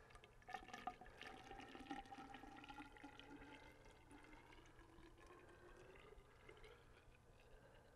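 Antifreeze poured from a plastic jug into a hose end to winterize a marine engine's cooling system: a faint steady trickle and gurgle whose pitch slowly rises as the hose fills.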